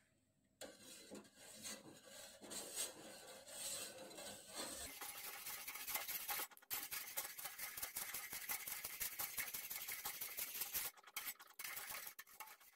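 A spoon stirring milk in a stainless steel pot, faintly scraping and ticking against the metal, starting about half a second in.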